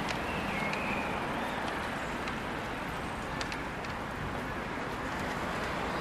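Steady low rumble and hiss of outdoor background noise, with a faint high chirp near the start and a few light clicks.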